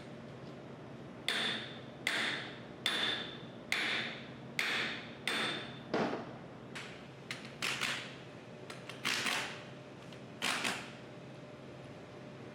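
Hammer blows on a bearing driver, seating a bearing into the pump housing: a steady run of ringing metal strikes about every 0.8 s, then a looser, irregular string of blows that stops shortly before the end.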